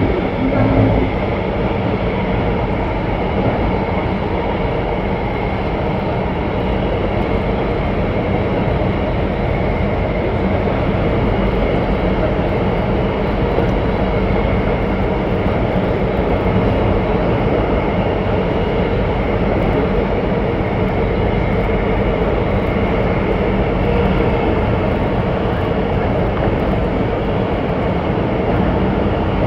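Alstom Metropolis C751C metro train running at speed between stations, heard inside the carriage: a steady rumble from the running gear with a regular buzzing running through it.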